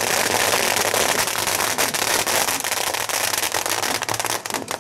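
A long string of firecrackers going off in a dense, continuous crackle, thinning into more separate pops near the end.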